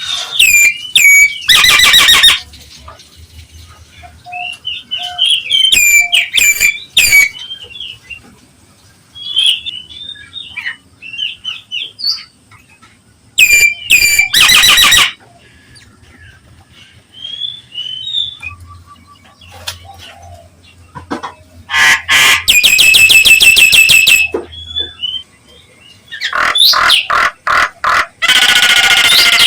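Nias hill myna calling: loud, harsh, rasping shrieks, each a second or two long, about four of them, broken up by short whistled notes.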